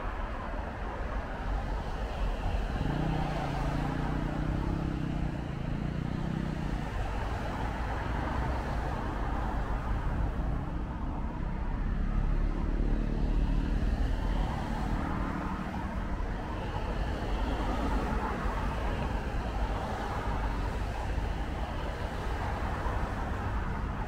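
City road traffic in the rain: a steady hiss of vehicles passing on wet road over a continuous low rumble. A heavier engine hum rises above it from about 3 to 7 seconds in, and again around 12 to 15 seconds.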